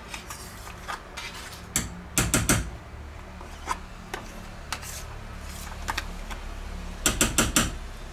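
Metal spoon scraping processed cheese spread out of a plastic tub and knocking against the tub and the rim of a stainless steel pot: scattered clicks, with a quick run of taps about two seconds in and another near the end.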